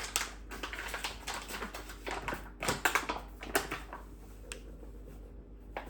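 Irregular crinkling, rustling and sharp clicks of ingredients, packets and kitchen utensils being handled while baking ingredients are weighed into a bowl, loudest about three seconds in.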